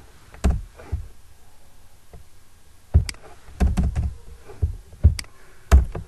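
Computer keyboard keys being struck: about ten separate clacking keystrokes with a dull thud, two in the first second, then a quicker cluster over the last three seconds.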